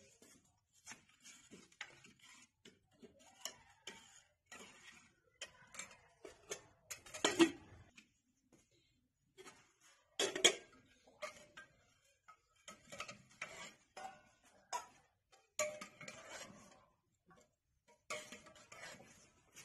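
Stainless steel kitchen vessels, lids, plates and a spoon clinking and knocking irregularly as they are handled and set down, with two louder clanks about seven and ten seconds in.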